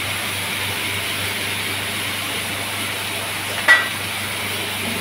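Strips of beef rib meat sizzling in a ridged grill pan, a steady hiss. One sharp metallic clink sounds a little before the end.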